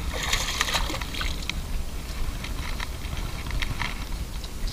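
A hooked peacock bass splashing and thrashing at the water's surface as it is reeled in to the bank, in sharp bursts that are busiest in the first second, over a steady low rumble.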